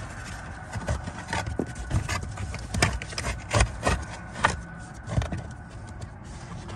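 A pleated cabin air filter being slid into the plastic filter housing of a 2021 Tesla Model 3: irregular rubbing and scraping with a series of sharp clicks and knocks as its frame catches on the housing.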